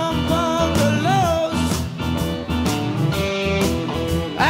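Blues-rock music with electric guitar and a steady beat, from a live concert recording.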